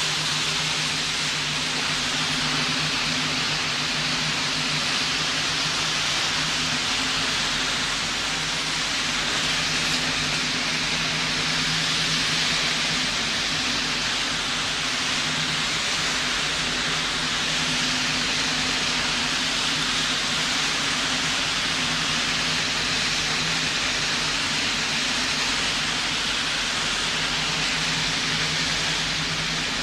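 High-speed catamaran ferry running at about 28.5 knots: a steady low engine drone under a constant rushing hiss of water from its wake and spray.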